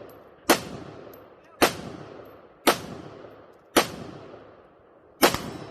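Rifle fired five times at a steady pace, about a second apart, each shot sharp and followed by a long echoing tail.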